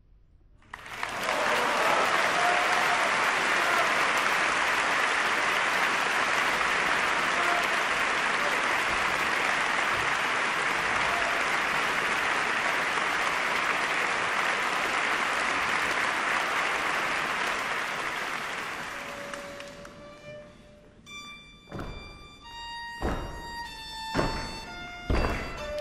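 Audience applauding steadily for nearly twenty seconds, then dying away. Near the end a string ensemble starts playing, with sharp, accented chords.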